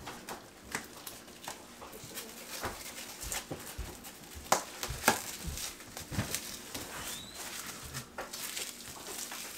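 Plastic-wrapped packages of meat being handled: rustling plastic food wrap and irregular taps and clicks as the packages are set down and stacked on a stone countertop.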